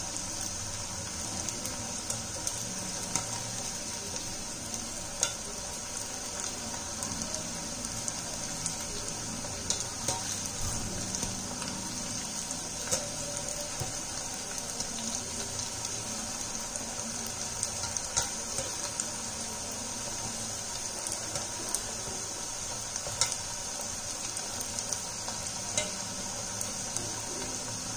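Batter-coated potato pieces deep-frying in hot oil: a steady sizzle with frequent scattered sharp pops.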